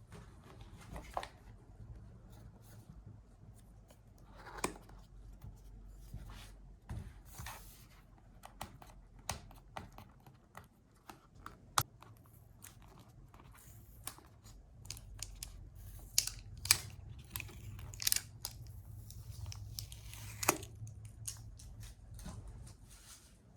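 Keyboard packaging being opened by hand: irregular rustling and tearing of the wrapping, broken by scattered sharp clicks and taps, with a few louder ones in the second half.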